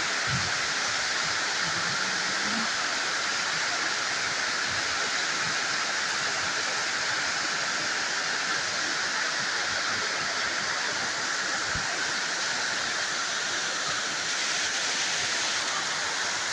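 Steady, even rain hiss.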